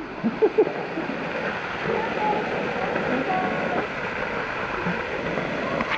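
Waterfall pouring steadily, with a few short voice sounds in the first second.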